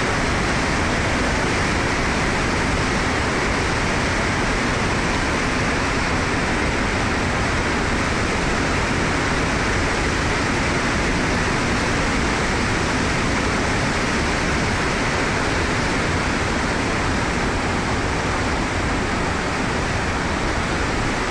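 Flash-flood torrent of muddy water surging down a street, a loud steady rush of churning water.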